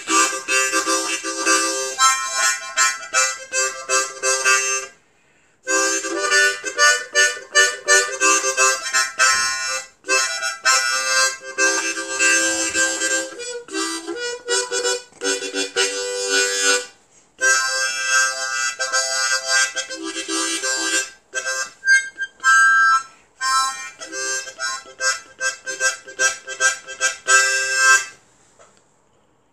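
Hohner Marine Band ten-hole diatonic harmonica played in short rhythmic phrases of reedy notes, with brief breaks between phrases; the playing stops about a second and a half before the end.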